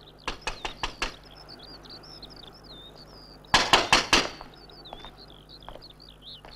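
Knocking on a door: a quick run of raps just after the start and a louder, faster burst past the middle, with no answer. A small bird twitters steadily behind it.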